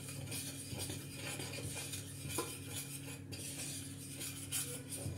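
A metal spoon stirring and scraping in a stainless steel pot, clinking against its sides, with a sharper clink about two and a half seconds in, as flour is toasted in melted butter. A steady low hum runs underneath.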